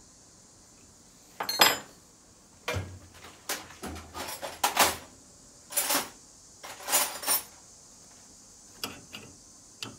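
Steel hand tools clinking and clanking: wrenches being handled against the injector nut, the vise and the steel workbench. A string of sharp separate metallic knocks starts about a second and a half in.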